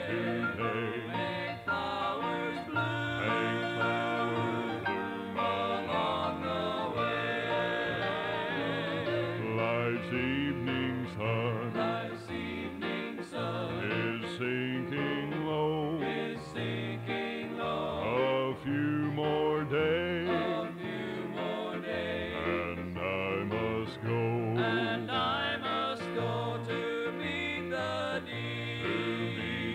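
Gospel vocal group singing with country-style instrumental backing, played back from a 1983 cassette tape.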